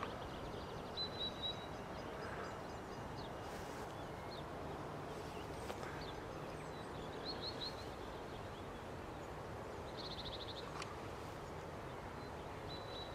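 Steady low outdoor background noise with small birds chirping now and then: a burst of three high chirps about a second in, three or four more around seven seconds, and a quick trill near ten seconds.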